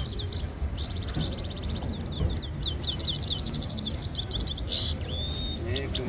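Goldfinches singing: fast, twittering song made of rapid runs of short high notes and buzzy trills, almost without a break.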